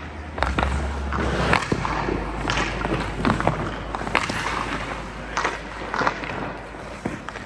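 Hockey skate blades scraping on rink ice, with a string of sharp clacks from a stick striking pucks, roughly one a second, over a steady low hum.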